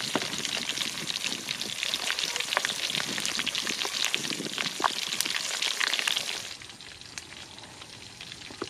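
Pork legs deep-frying in hot oil in a wide metal pan: a dense sizzle with many sharp pops and crackles. It drops away to a much quieter background about six and a half seconds in.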